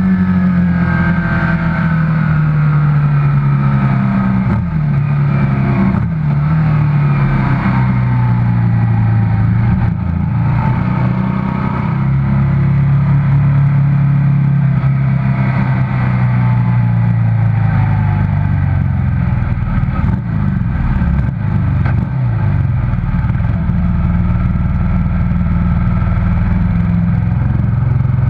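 Racing motorcycle engine heard from the bike itself, running loud and steady. Its note slides down in several long falls as the bike eases off and slows, then settles to a steadier lower note near the end.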